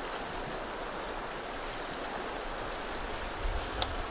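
Wind-driven waves on a large lake washing steadily, with strong wind and a single sharp click near the end.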